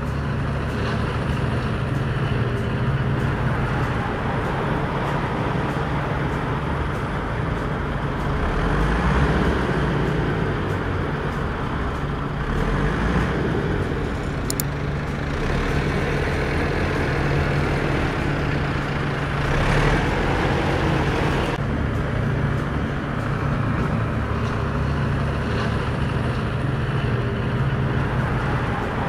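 Tractor engine running steadily with a deep hum, swelling slightly in level now and then.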